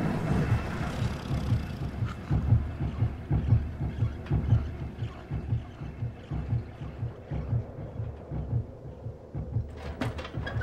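A low, rhythmic throbbing pulse, about three beats a second, with a few sharp clicks near the end.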